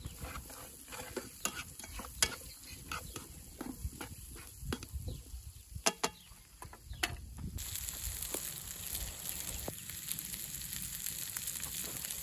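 Diced potato, carrot and celery frying in a pan on a rocket stove, stirred with tongs that click and scrape against the pan. About seven and a half seconds in, a steady sizzling hiss takes over.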